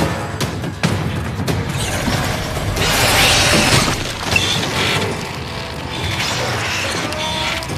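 Film sound effects of metal mechanisms clanking and grinding as a ship's hatch handwheel is wrenched round, over dramatic music. A louder crashing surge comes about three seconds in.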